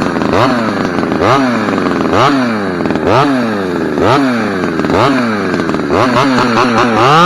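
Two-stroke chainsaw revved in repeated throttle blips, its pitch jumping up and sagging back about once a second, then held at full throttle at the very end as the cut begins.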